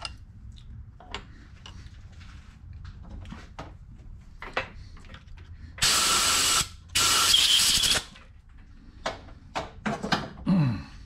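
Two blasts of compressed air from a blow gun on an air hose, each about a second long, blowing aluminum chips off a freshly tapped part. Light clicks of hand tools before and after, and a few clacks with a brief falling note near the end.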